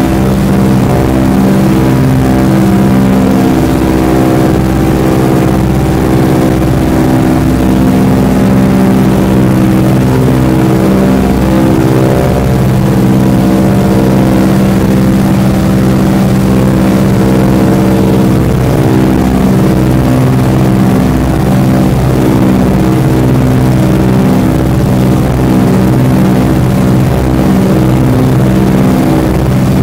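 Ford Tri-Motor's radial engines and propellers droning steadily in cruising flight, heard from inside the cabin, loud and even with a slow pulsing throb underneath.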